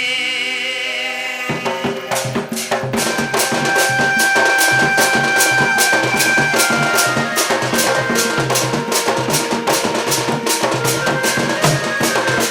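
Danda nacha dance music: a held note, then from about a second and a half in, a fast, steady drumbeat with a melody line over it.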